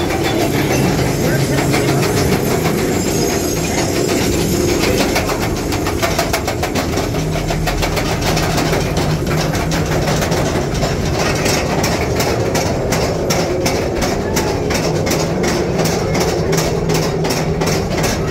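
Mine-train cars rolling through rock tunnels with a steady rumble. Past the middle, a rapid, even clicking of about three a second sets in.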